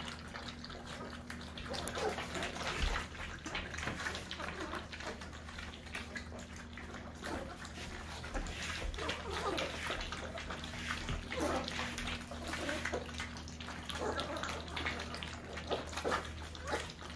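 A litter of goldendoodle puppies lapping and slurping milk together from a shared stainless steel pan: a constant, busy patter of small wet laps and clicks, with now and then a soft puppy whimper.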